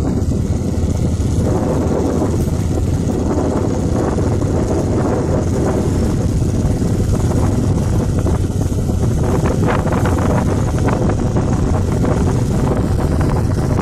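Wind buffeting a phone's microphone, a steady loud rumbling noise with a few faint knocks near the end.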